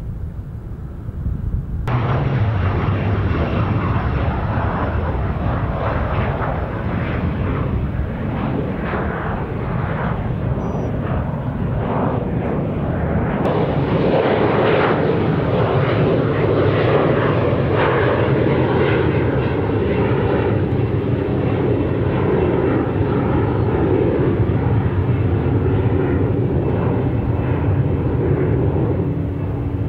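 Jet engines of departing aircraft at climb-out power: a steady, loud rushing rumble that changes abruptly about 2 s in and again about 13 s in. From about 13 s on, the sound is the twin turbofans of an Embraer regional jet climbing out after takeoff.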